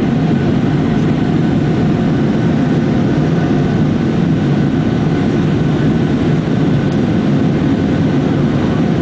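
Steady jet engine and airflow noise heard inside the cabin of a Southwest Boeing 737 climbing out after takeoff: a loud, even low rumble with faint steady tones above it.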